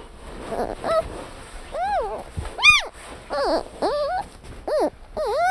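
Red panda calls: a series of about seven short, high calls, each rising and then falling in pitch, coming roughly every half to one second.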